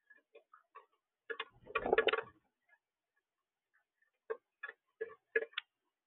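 Northern cardinal pecking at seed in a plastic platform feeder tray: a series of sharp, irregular ticks, with a louder clatter of pecks and scuffling about two seconds in.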